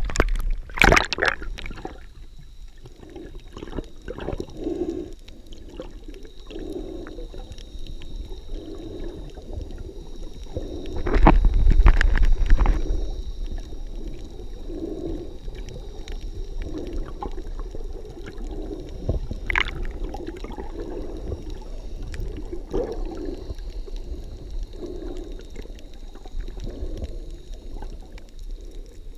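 Water sounds heard through a camera dipped underwater while snorkeling: splashing at the surface in the first second or so, then a muffled underwater murmur with soft swells every second or two. A louder low rumble with knocks comes about eleven seconds in, and a faint steady high whine sits under it all.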